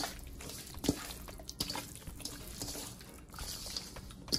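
Hands rubbing oil and dry seasoning into raw chicken pieces: wet, sticky handling sounds with a few short soft slaps and clicks.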